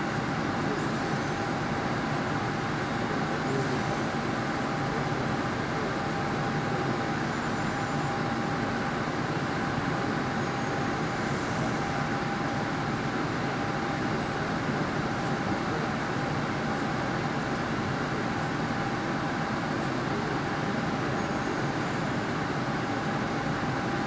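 MBTA Green Line light-rail car running between stops, heard from inside the car: a steady rumble of wheels on rail with a constant hum, and brief high-pitched squeals every few seconds.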